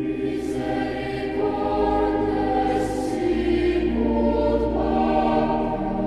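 Choral music: voices singing long held chords, moving to new chords a few times.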